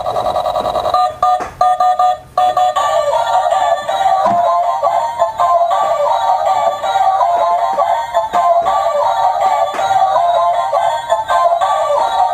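Tinny electronic tune with a synthetic voice-like melody and no bass, played through the small built-in speaker of a remote-control 360-degree somersault stunt toy car once it is switched on.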